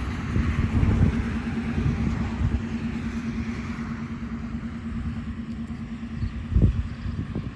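A motor vehicle running with a steady engine hum and road hiss that slowly fades, with low thumps of wind or handling on the microphone.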